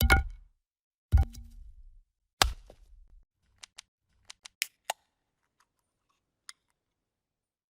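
Video-editing transition sound effects: three short sharp hits, each with a low thud beneath, about a second apart, followed by a run of quick faint clicks and a single tick near the end.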